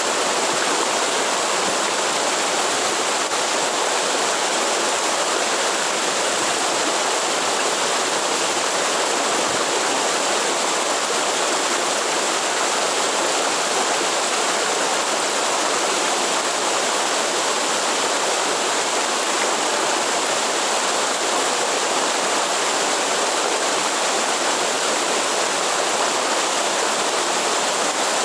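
Waterfall: water falling and rushing with an even, unbroken hiss.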